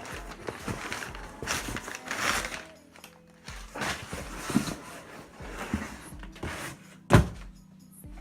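Cardboard box and paper packaging being handled, rustling with light knocks, and one sharp loud thunk about seven seconds in. Background music plays underneath.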